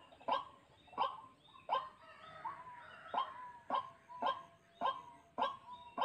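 White-breasted waterhen calling: a loud, harsh note repeated about every two-thirds of a second, with a brief break in the rhythm around two seconds in.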